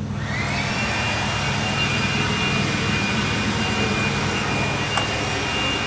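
A steady engine drone with a high whine that rises at the start and then holds level.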